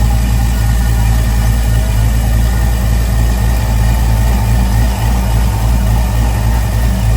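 Chevrolet Malibu's engine idling steadily with a low, even rumble, left running to warm up to operating temperature.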